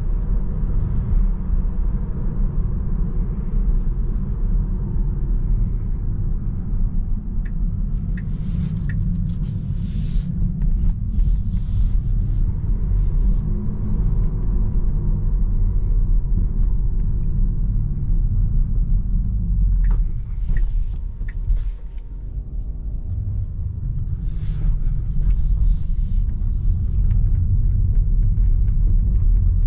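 Steady tyre and road rumble inside the cabin of a Tesla Model 3 Long Range dual-motor electric car on the move, with no engine sound under it. A few light clicks come about 8 and 20 seconds in, and the rumble grows louder over the last few seconds.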